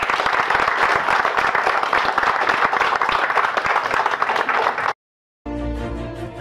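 Audience applauding, a dense steady clapping that cuts off abruptly about five seconds in. After half a second of silence, music begins near the end.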